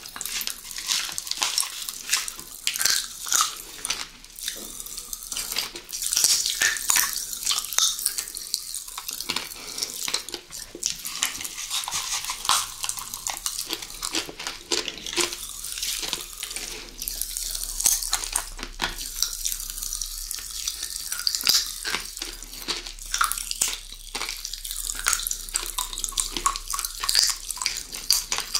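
Close-miked eating sounds: dense, continuous crackling and clicking of chewing and mouth sounds.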